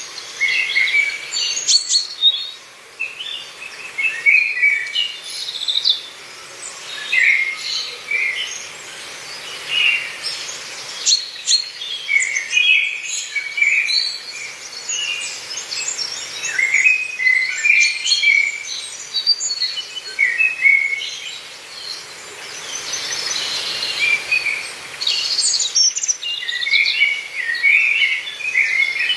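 Several songbirds singing and chirping in dense, overlapping short phrases and trills, over a faint steady hiss of forest ambience.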